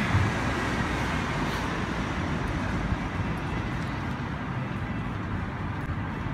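Street traffic: a steady rush of passing cars, easing off slightly toward the end.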